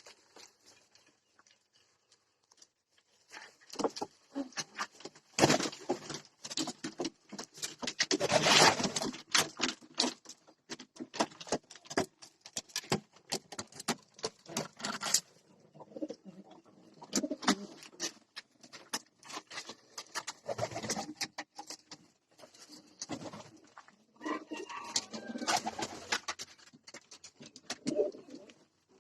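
Domestic pigeons cooing, amid many sharp clicks and scuffs from the birds moving about; it starts a few seconds in after a near-quiet opening.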